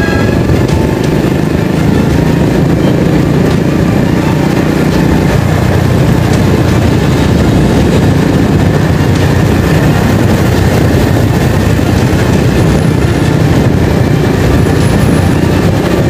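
Steady engine drone and road noise from the vehicle the camera rides on, running along at a constant pace with no change in speed.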